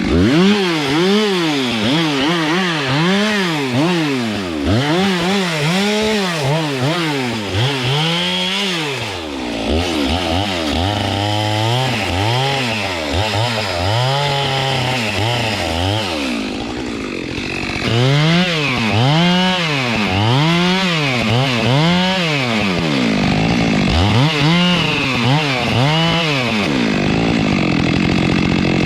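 Chainsaw cutting through a log, its two-stroke engine speed rising and falling about once a second as the chain loads up and frees. It steadies for a few seconds midway.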